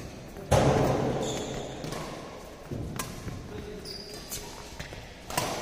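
Badminton rally in a large echoing hall: rackets striking the shuttlecock several times, the loudest hit about half a second in with a ringing echo after it, and sharp shorter hits later on. Short high squeaks come in between the hits.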